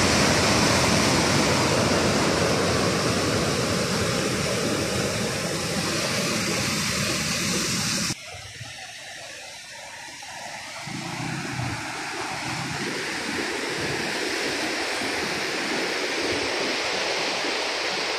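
Canal water rushing through an open sluice gate: a loud, steady rush of turbulent water. About eight seconds in it drops suddenly to a quieter rush of the churning, foamy water below the gate, which grows louder again later on.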